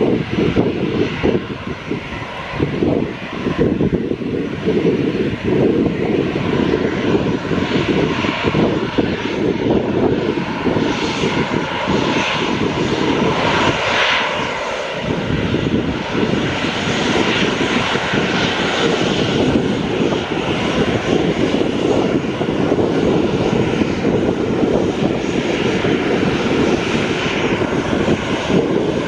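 Airliner engines running loud and steady, a dense rumbling roar that stays at much the same level throughout.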